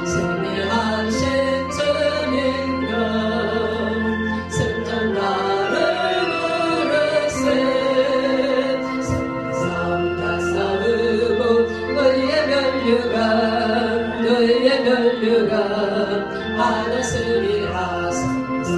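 A woman singing a Korean hymn solo into a microphone, her melody carried over an instrumental accompaniment with steady sustained bass notes.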